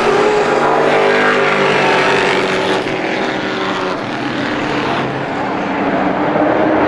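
Several race trucks' engines running hard together at speed, their pitch rising and falling as they go through the turn. The sound eases slightly in the middle and swells again near the end.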